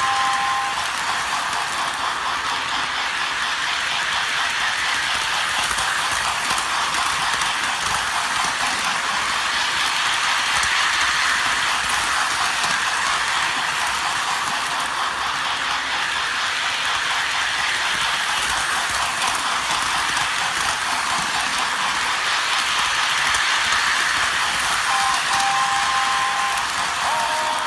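Three-rail model train running around its track, heard from a coach it is pulling: a steady running noise of wheels on rails and motor. Near the end a two-note whistle sounds briefly, then falls away.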